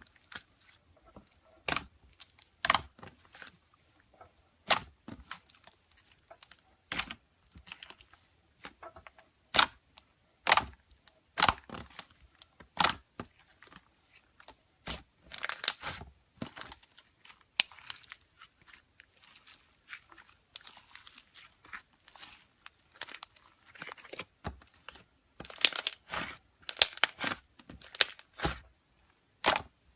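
Slime being squeezed and stretched by hand, making irregular sharp pops and crackles that come singly and in quick clusters.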